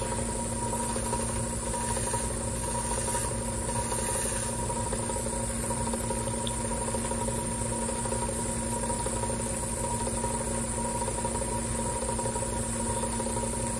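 Small 1x42 belt grinder running steadily, its motor and belt giving an even hum with a fixed whine, while stainless pin stock is touched up lightly on the slack belt section.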